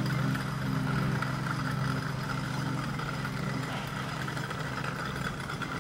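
Small DC motors of a homemade toy car whirring steadily as it rolls across concrete on circular saw-blade wheels, with a steady low hum and a higher whine, growing a little quieter.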